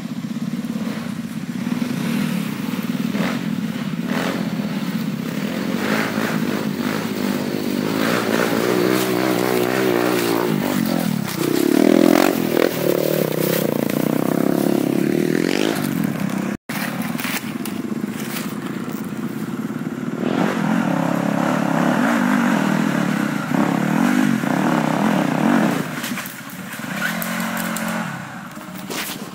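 Trail motorcycle engines revving hard, the revs rising and falling. Loudest about twelve seconds in.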